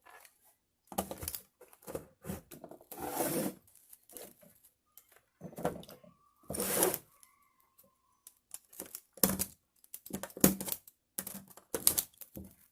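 Window screen mesh being cut and torn off along the frame edge, a run of short irregular rasping strokes with a couple of longer tearing ones, as the excess screen is trimmed away at the corners.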